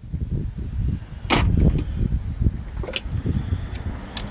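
Hand tools working on a car battery terminal: a loud metallic clank about a second in, then a few single sharp clicks, over low rumbling handling noise.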